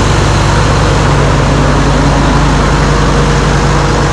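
Old tractor engine running steadily while the tractor is driven.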